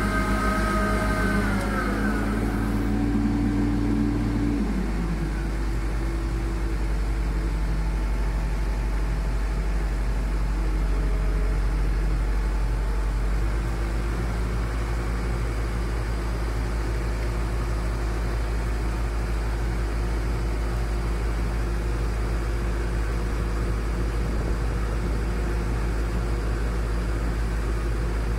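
Engine of a hydraulic stringing machine (puller-tensioner) slowing from high revs over the first few seconds, then running steadily at the lower speed.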